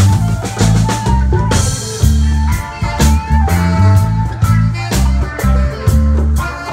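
Live reggae band playing: a heavy bass line under drum kit and guitar, with a cymbal crash about a second and a half in.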